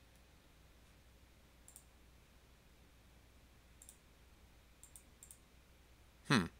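A few faint computer-mouse clicks, spread apart and some in quick pairs like double-clicks. Near the end comes a short, louder bit of the speaker's voice, falling in pitch.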